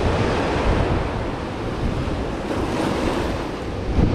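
Ocean surf washing over a rocky shore in a steady rush, with wind buffeting the microphone.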